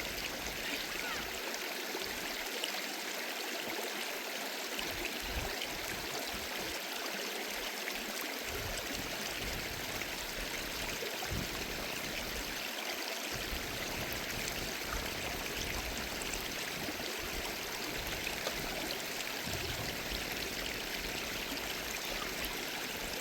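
Stream water flowing steadily, an even rushing with no change.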